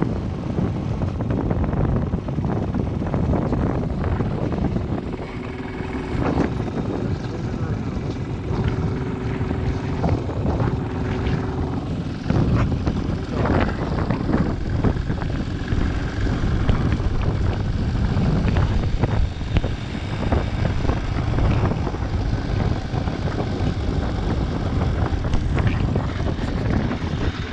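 Motorcycle engine running steadily under way, with a dense rumble of wind on the microphone.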